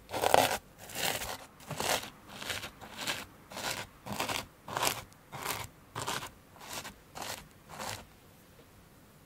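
A metal spoon pressing and smoothing buttery crushed-biscuit crumbs into a cake tin, with a crunchy scrape on each stroke. About a dozen strokes come roughly every half second, getting a little softer, and stop near the end.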